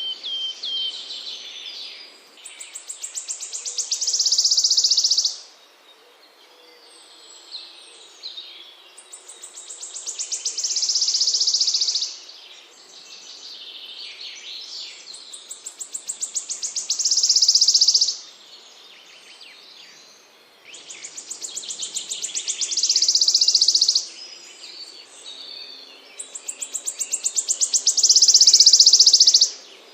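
A small songbird's recorded song, repeated about every six seconds: a rapid run of high notes that speeds up and grows louder into a dense buzzing trill, then stops abruptly, with softer twittering between the phrases.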